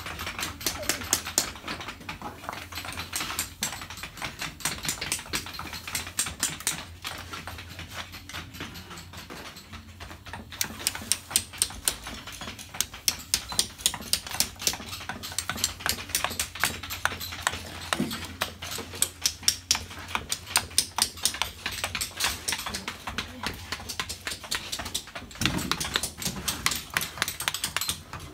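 Steel chisels struck by hand mallets on stone: quick, sharp taps repeating several times a second as the stone is carved, with a short lull partway through.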